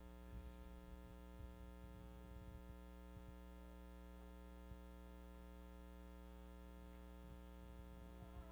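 Near silence: a steady electrical hum, with a few faint knocks.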